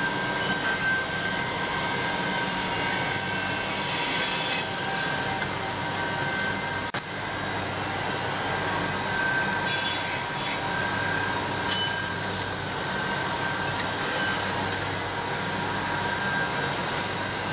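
Woodworking machinery running steadily on a factory shop floor: a continuous hum with a steady high whine, broken by a few brief clicks and knocks.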